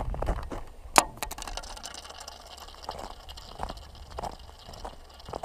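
A sharp snap about a second in, then footsteps crunching on hard, crusted snow, about one step every half second or so.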